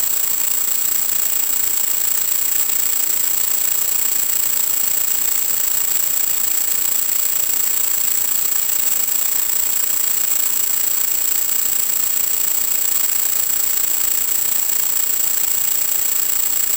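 Steady, loud hiss with a constant high-pitched whine above it: static from the audio channel of an analog 1.2 GHz FPV video link carrying no sound of its own.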